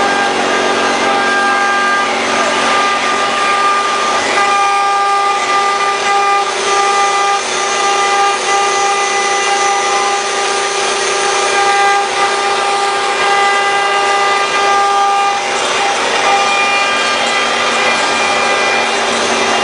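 CNC engraving machine running, its spindle giving a steady whine of several tones over the hiss of the bit cutting into the workpiece.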